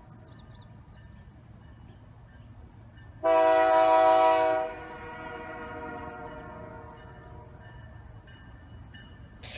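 Train horn sounding one long blast of about a second and a half, several steady notes together, that fades out afterwards, over the low rumble of a passing train.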